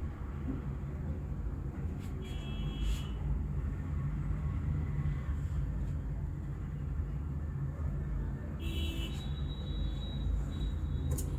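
Steady low background rumble, with two short high-pitched chirping tones about two seconds in and again near nine seconds.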